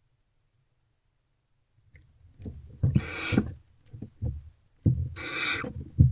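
Barn owl owlets giving two harsh, hissing begging calls about two seconds apart, among knocks and scuffling in the wooden nest box.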